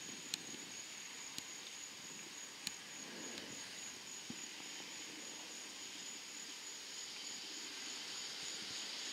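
Insects trilling steadily at a high pitch, with a few sharp clicks in the first few seconds.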